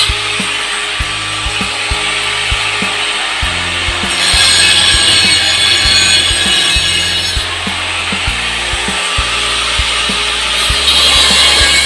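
Long rasping scrapes of metal being worked on a grass-chopper frame, strongest for a few seconds in the middle and again near the end, over background music with a steady beat and bass.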